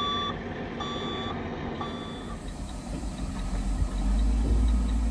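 A vehicle's reversing alarm beeping three times, about once a second, then stopping. A low rumble grows louder near the end.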